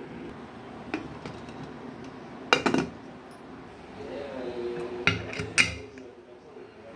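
Aluminium pressure cooker being closed: metal knocks as the lid goes on, a cluster about two and a half seconds in, then two sharp clinks about five seconds in as the whistle weight is set on the vent pipe.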